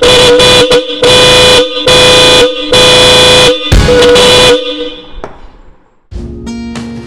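Hella Signature Red horn set sounding: two short toots, then four longer blasts of about a second each. The tone is steady and very loud, and it dies away about five seconds in.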